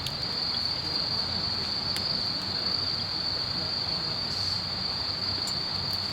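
Steady high-pitched insect chorus, an unbroken trill with no pauses.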